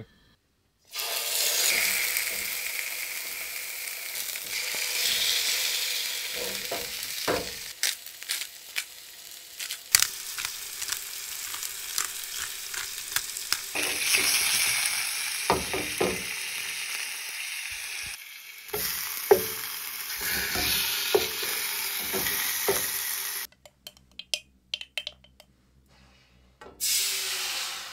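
Fish fillets sizzling as they fry in oil in a pan, with scattered short clicks and knocks of a utensil against the pan. The sizzle cuts off and restarts a few times.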